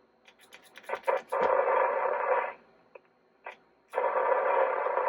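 Edison Voicewriter dictation machine: a run of clicks from its controls, then two bursts of rushing hiss from its small speaker, each a little over a second long.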